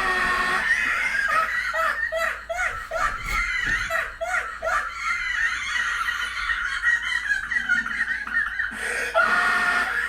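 High-pitched laughter in short, repeated bursts.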